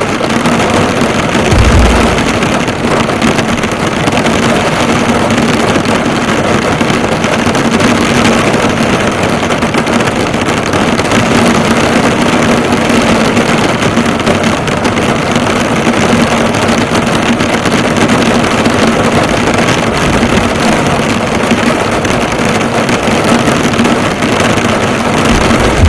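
Heavy rain drumming hard on a car's hood and roof, a dense, steady patter of drops, with a faint steady hum beneath. A brief low thump about two seconds in, and more near the end.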